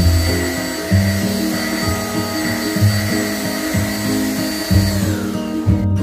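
Inse 600W corded stick vacuum's motor running on carpet with a steady hiss and a high whine, then switched off about five seconds in, its whine falling away. Guitar background music plays throughout.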